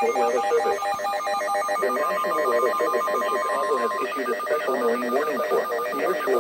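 Emergency Alert System tones for a Special Marine Warning: a rapid, ringing stream of electronic data chirps, with one steady tone held for about two seconds in the middle.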